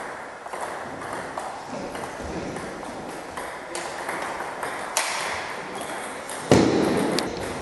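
Table tennis ball clicking off the rackets and table in an irregular rally, each hit ringing on in the echoing hall. A single louder, deeper thud comes about six and a half seconds in.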